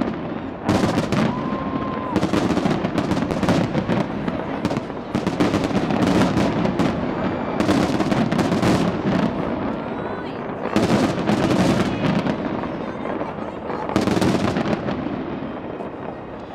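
Dense barrage of aerial fireworks bursting: rapid overlapping bangs and crackling, with heavier clusters of bursts every two to three seconds.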